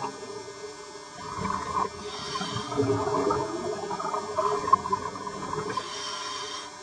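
Scuba diver breathing through a regulator underwater: two hissing inhalations about four seconds apart, with irregular gurgling exhaust bubbles between them.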